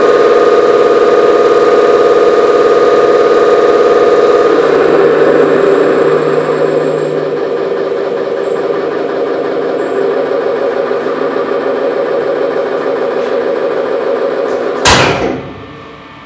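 ST05G-CNC Stirling engine running on its dynamometer test stand: a steady mechanical hum with a whine. About four and a half seconds in the tone shifts and the sound grows gradually quieter. A sharp thump comes near the end, after which the machine sound is much quieter.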